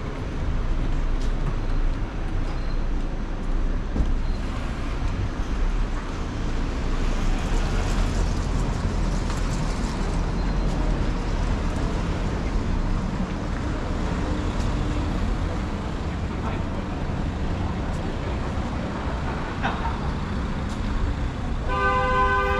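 City street traffic: a steady low rumble of car engines and tyres. A car horn sounds near the end.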